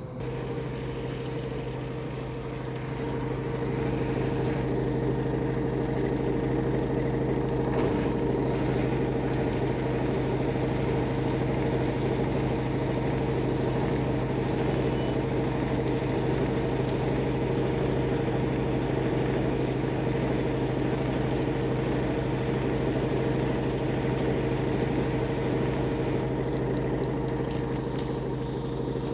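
Washing machine in its spin cycle: the drum speeds up over the first few seconds, then spins at a steady high speed with a loud, even hum.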